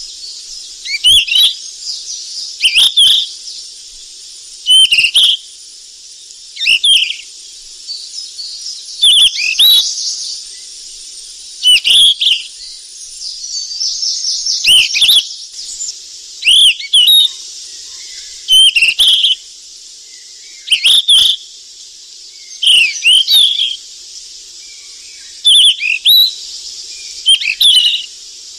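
A flycatcher singing a short, loud, whistled phrase of rapid up-and-down notes about every two seconds, over a steady high hiss.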